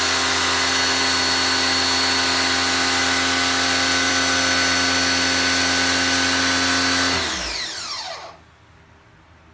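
An electric tool motor running steadily at high speed, then switched off about seven seconds in and spinning down, its whine falling away until it stops.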